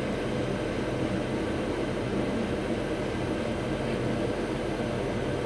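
Steady rush of blowing air with a low hum from a hot air rework station reflowing a surface-mount chip on a laptop logic board.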